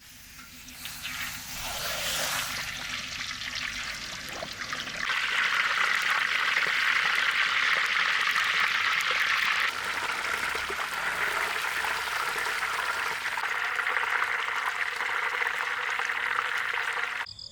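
Pork leg deep-frying in hot oil: a steady, dense sizzle that jumps louder about five seconds in, eases a little near ten seconds and cuts off abruptly just before the end.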